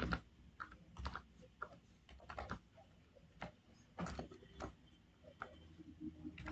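Computer keyboard keystrokes: slow, irregular typing of single keys with short pauses between them.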